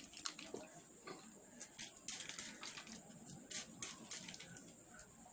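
Hand-pump spray bottle spritzing water onto hair and scalp: several short hissing sprays, irregularly spaced, with faint rustling of hair between them.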